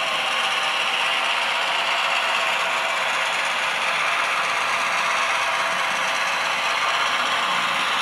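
Kato N-gauge DCC locomotives running with their ESU LokSound decoders on: small-speaker engine sound effects mixed with the whir and clatter of the tiny motors, gears and wheels on the track. Steady throughout.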